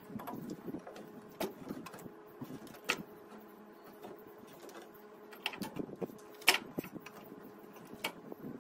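A handful of sharp snips and clicks from hand pliers cutting and working the wires of a vehicle wiring harness, with wire handling between them. The loudest snip comes about two-thirds of the way in.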